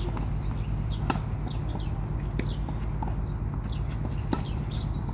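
Tennis ball struck by rackets in a rally: a few sharp pops, the loudest about four seconds in, over a steady low outdoor hum, with birds chirping throughout.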